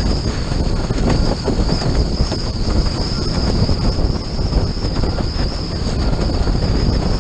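Windsurf board planing over choppy water: wind buffeting the microphone and water rushing and slapping under the hull in a loud, steady rumble, with a constant high hiss above it.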